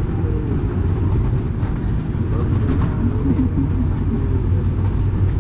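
Supercharged V8 engine of a pulling tractor idling steadily, a loud low rumble heard from inside the cab.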